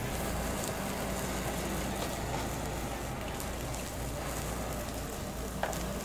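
Lamb sizzling on a hot grill, a steady crackling hiss, with a single small click about five and a half seconds in.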